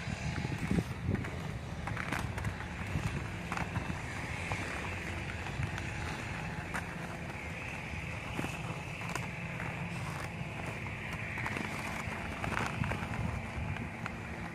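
Inline skate wheels rolling on a concrete path: a steady rolling rumble with a scattering of short clicks.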